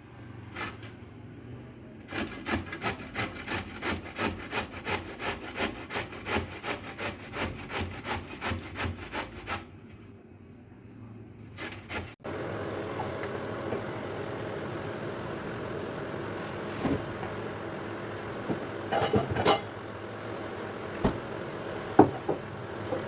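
Coconut being grated: rhythmic rasping strokes, about two or three a second, that stop after several seconds. A steady hiss then starts, with a couple of sharp clinks like a utensil against a pot.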